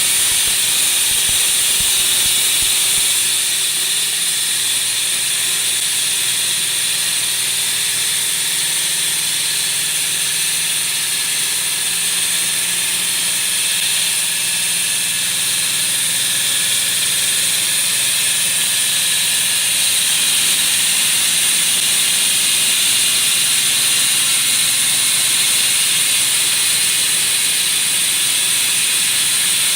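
HF 105DM high-frequency electric wall saw cutting concrete with its diamond blade: a steady, high-pitched hissing whine that dips slightly in level a few seconds in.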